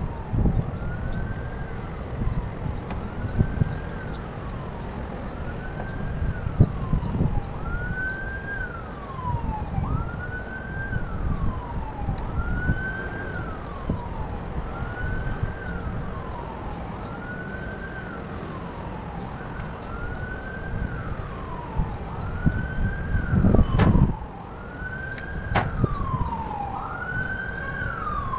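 Emergency-vehicle siren wailing over and over, each cycle a quick rise in pitch and a slower fall, about every two seconds. Under it are low rumbling and knocks from hands working on the condenser fan, with a loud clunk a few seconds before the end.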